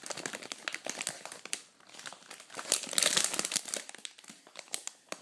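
Plastic packaging bag crinkling and crackling as a squishy toy inside it is handled and turned over, loudest about three seconds in.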